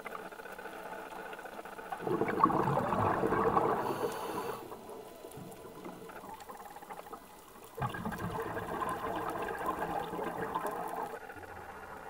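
Underwater bubbling in two bursts of about two and a half to three seconds each, a few seconds apart, like a scuba diver's exhaled bubbles rising from the regulator, over a quieter steady underwater background.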